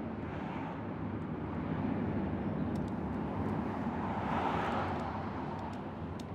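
Outdoor city street noise: a steady rumble of traffic that swells briefly about four seconds in.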